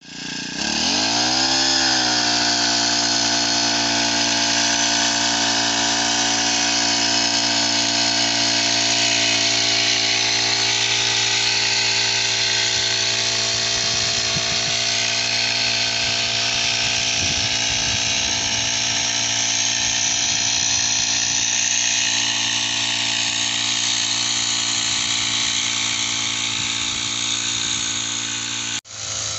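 Motorized backpack crop sprayer running. It speeds up over the first couple of seconds, then runs at a steady pitch with a strong hiss of spray, and cuts off abruptly just before the end.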